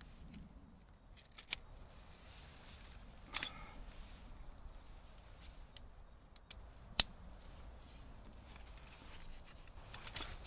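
A few scattered clicks and knocks over a faint background, with a short scraping rustle about three seconds in and one sharp click about seven seconds in, the loudest.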